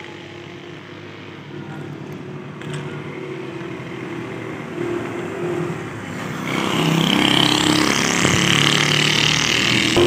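A motor vehicle's engine running and growing steadily louder, with a rushing hiss joining in about six seconds in.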